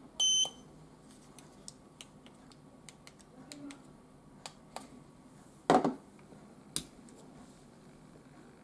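A short electronic beep from a handheld remote-key frequency tester as its button is pressed, then light clicks of a Mercedes-Benz smart key being handled, with one louder knock about six seconds in.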